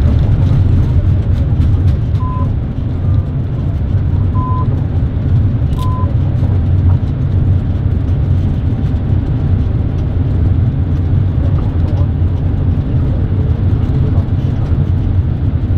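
Airbus A380 flight-deck noise during the landing rollout: a loud, steady low rumble as the aircraft decelerates on the runway. Three short high beeps sound about two seconds apart in the first half.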